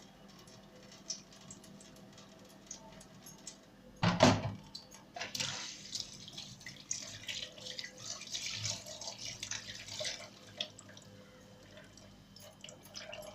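A little water with leftover spices, poured from a dish into the cooking tray, splashing and dripping for several seconds. A single knock sounds about four seconds in.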